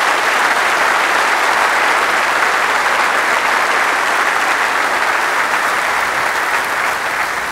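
A large auditorium audience applauding steadily to welcome a speaker to the podium. The clapping eases slightly near the end.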